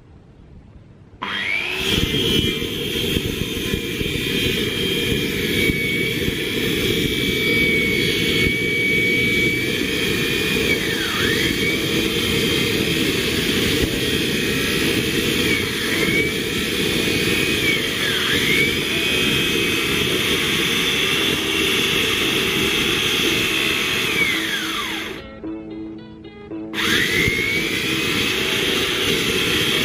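Makita circular saw starting about a second in and cutting through a block of coconut-palm wood. Its high motor whine dips each time the blade bogs down in the cut. Near the end it spins down, then starts up again.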